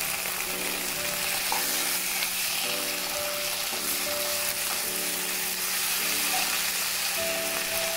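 Prawns and onions sizzling steadily in hot oil in a nonstick pan, stirred with a spatula, over soft background music of held notes.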